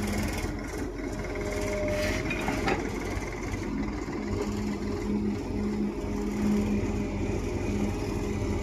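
Hydraulic excavator's diesel engine running steadily under load while the machine digs soil, with a low note that pulses on and off.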